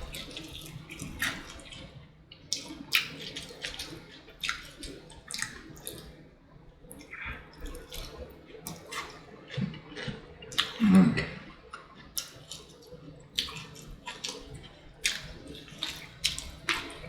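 Close-up eating sounds of fried chicken dipped in queso: chewing and lip smacking, a run of short irregular clicks and wet mouth noises. A brief voiced sound, like a hum, comes about eleven seconds in.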